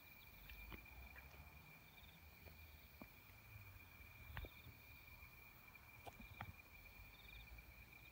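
Near silence with a faint insect chorus: one steady high trill and short pulsed chirps repeating above it, broken by a few soft clicks.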